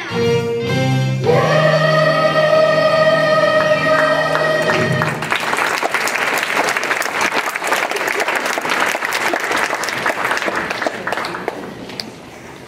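Middle-school choir holding the final chord of a song for about five seconds, then the audience applauding, the applause fading near the end.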